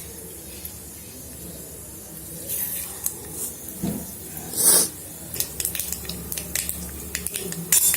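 Mustard seeds sizzling in hot mustard oil in an electric kettle, with a soft steady hiss at first. A louder hiss comes a little before halfway, then the seeds start crackling and popping rapidly.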